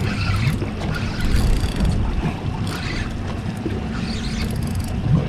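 Steady low rumble of a fishing boat's idling engine, with wind on the microphone and scattered splashy noise on top.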